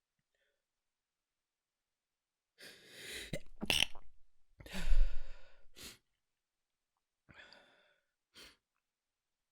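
A person's sneeze held back to keep it quiet: a breathy build-up of quick intakes, then a muffled burst about five seconds in, the loudest sound here, followed by two faint short sniffs.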